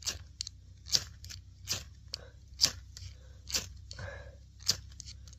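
Ferrocerium fire steel being struck with a scraper, short rasping strokes about once a second that throw sparks onto confetti tinder, which does not catch.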